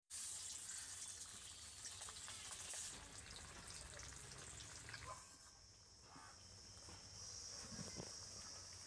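Marinated rohu fish pieces sizzling in hot oil in a kadai, a faint frying hiss strongest over the first three seconds. About halfway through a steady high-pitched whine comes in, with a few faint clicks.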